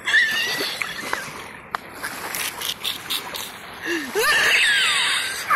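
High-pitched, honking laughter and shrieks at close range, breaking out sharply at the start and swelling again near the end, with some splashing of water in between.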